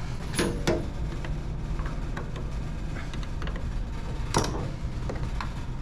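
A few sharp clicks and knocks of hand-worked plastic and metal door-handle parts as a stubborn clip is pried at, the loudest about four seconds in, over a steady low hum.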